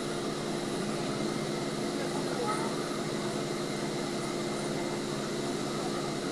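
Scania city bus engine idling steadily while the bus stands still, heard as a constant low hum inside the passenger cabin.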